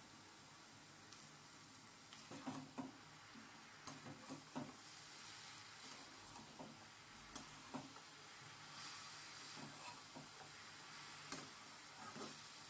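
Faint sizzling of cabbage, potatoes and peas frying in a stainless steel kadai, with a spatula scraping and clicking against the pan from about two seconds in as the mix is stirred to dry off the water from the boiled cabbage.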